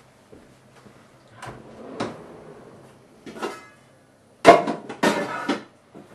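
A kitchen corner drawer is opened, then metal pots, pans and lids clank and clatter as cookware is set into it. A few separate knocks come first, and the loudest clatter follows about four and a half seconds in.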